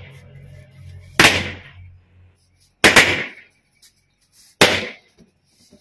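Rubber balloons bursting one after another as they are poked: four sharp pops, two of them in quick succession near the middle.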